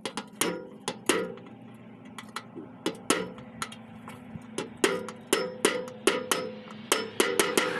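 A short metal pipe knocking along the cut edge of a sheet-steel oil tin to fold it over: sharp metallic knocks, each ringing briefly. The knocks are irregular at first and come faster in the second half.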